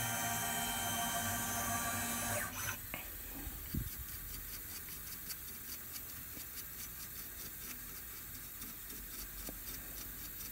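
Roland MDX-40 CNC mill's motors whining steadily as the machine travels to its view position, cutting off about two and a half seconds in. A thump follows, then faint scratchy brushing as a paintbrush sweeps wax chips off the ring and its chuck.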